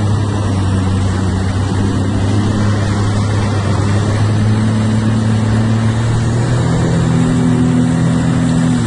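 Jet ski engine running steadily under throttle, its pitch rising a little about two-thirds of the way in.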